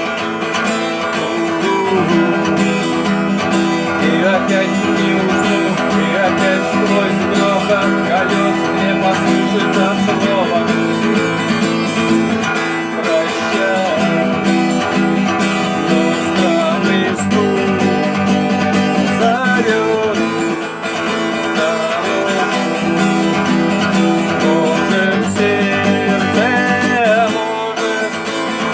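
Instrumental passage of a song, led by acoustic guitar, with a melody line bending in pitch above steady chords.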